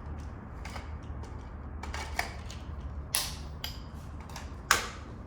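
Mop parts being handled: scattered clicks and knocks of hard parts, the sharpest about three seconds in and again near the end, over a low steady hum.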